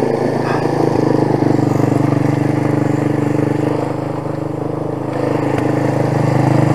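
Quad ATV engine running steadily at low revs, easing slightly about four seconds in and picking back up a second later.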